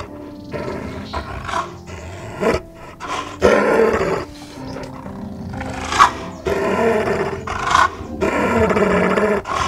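A large wild animal growling and roaring in a series of calls, each about a second long, the loudest about three and a half seconds in.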